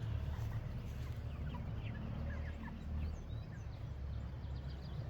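A flock of meat chickens and ducks giving many short, high peeps and chirps, scattered and overlapping, over a steady low rumble.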